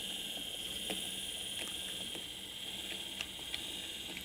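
HO-scale model train, a battery-powered Plymouth switcher pulling coal hoppers, rolling along the track: faint, irregular clicks of wheels over rail joints and turnouts, over a steady hiss.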